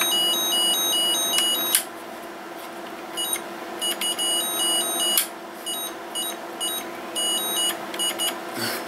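Electronic two-tone siren from a Lego lights-and-sound fire truck's battery-powered sound brick, beeping back and forth between two high pitches. It cuts out about two seconds in and comes back in shorter, quieter spells, with a few sharp clicks.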